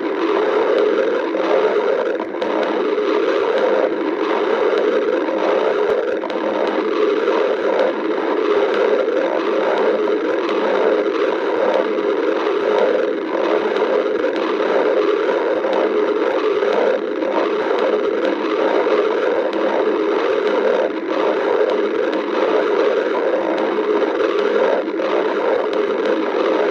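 Stomach growling, picked up close: a continuous, dense gurgling noise that never breaks off, with a fine irregular flutter running through it.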